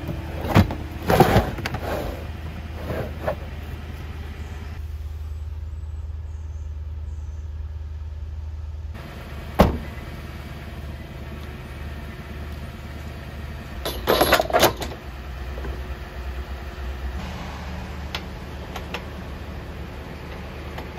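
Knocks and clatter of outdoor gear being handled at an SUV's cargo area over a steady low rumble. There are a few knocks in the first three seconds, one sharp bang near ten seconds, and a quick cluster of knocks around fourteen seconds.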